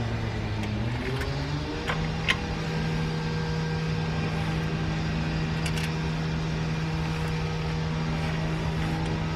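A motor or engine running with a steady hum. Its pitch rises to a higher steady speed between one and two seconds in. A few light metallic clinks are heard over it.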